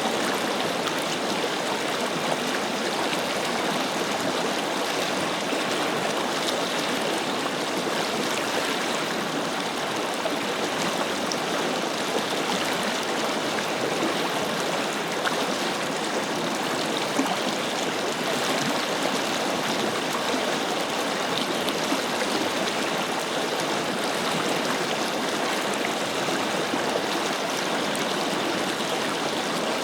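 Forest river flowing: a steady, even rush of water over stones, with no change throughout.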